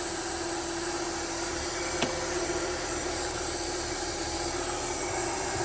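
Steady electric-motor hum with a constant tone and a hiss, from a test rig run by a Parker 590P DC drive. A single sharp click comes about two seconds in.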